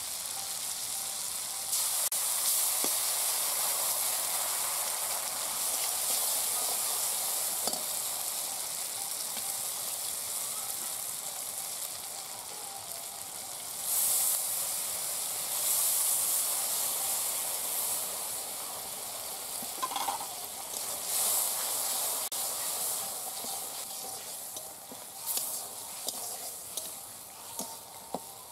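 Tomatoes and spices sizzling in hot oil in a metal kadai, stirred with a metal spatula. The sizzle flares up about halfway through as spice paste goes into the pan, and the spatula scrapes the pan several times near the end.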